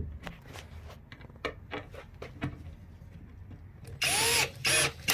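A few light clicks and knocks, then about four seconds in a cordless drill runs loudly in two short bursts, driving a screw into a pine board.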